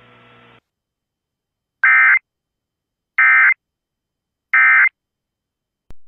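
Emergency Alert System SAME digital data tones: three identical short buzzy bursts about 1.3 seconds apart, with silence between them. This is the end-of-message code that closes the broadcast tornado warning.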